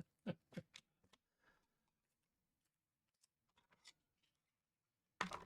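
Near silence: room tone with a few faint ticks and taps in the first second and again about three and a half seconds in.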